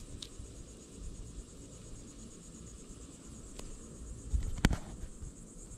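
A steady, high-pitched chorus of insects trilling, with a few knocks a little past halfway through.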